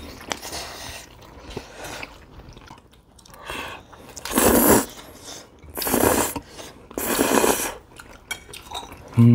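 Someone chewing and biting food close to the microphone: three loud crunching bites a little over a second apart around the middle, with quieter chewing between.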